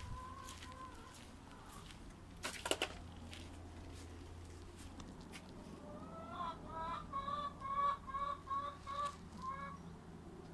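A chicken clucking: a brief call at the start, then a run of about ten short clucks, roughly three a second, in the second half. Two sharp clicks a few seconds in are the loudest sounds.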